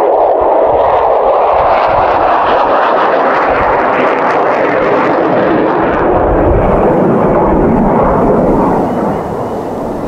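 Honeybees buzzing around an open hive: a steady, loud hum of many bees, easing slightly near the end.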